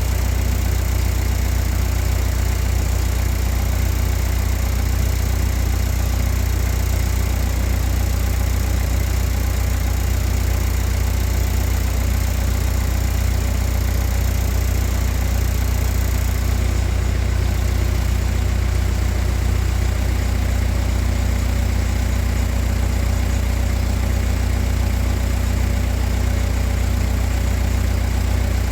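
Steady low mechanical drone, like an engine idling, holding level with a faint regular pulse.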